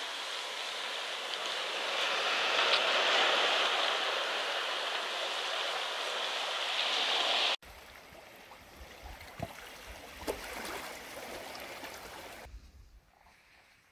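Steady rush of water along a rocky, seaweed-covered sea shore. It cuts off abruptly about halfway through to a much quieter stretch of gentle water with a low rumble and a few faint clicks.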